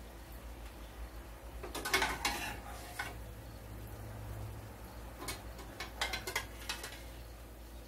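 A spoon scraping and clinking against a stainless steel pot as cooked penne is spooned into a skillet: a run of scrapes about two seconds in, then a few short clinks later on.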